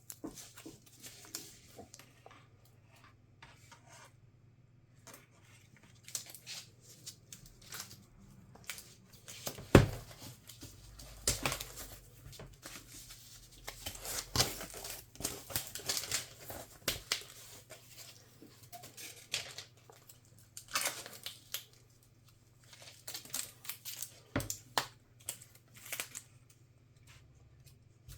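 Hands working on a laptop's internals: irregular small clicks, scrapes and rustles as tools and small parts are handled, with one sharper knock about ten seconds in.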